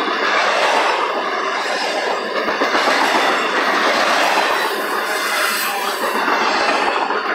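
Double-stack intermodal container cars of a freight train rolling past, steel wheels running on the rails with a steady, dense rolling noise.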